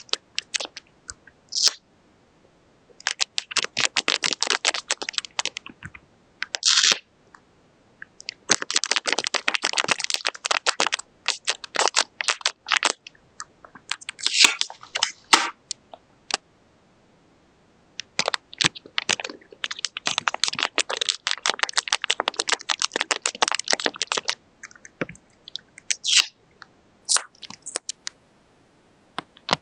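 Paper and tape crinkling and crackling as they are handled and pressed. The sound comes in runs of a few seconds with short pauses between them.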